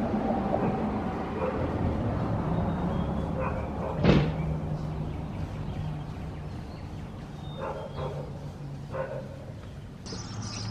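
A dog barking several times, the loudest bark about four seconds in, over a steady low hum.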